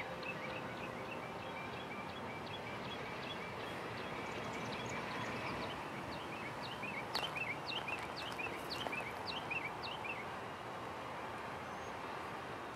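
Songbirds chirping, the chirps coming thick and fast in a quick run through the middle, over a faint steady background hum.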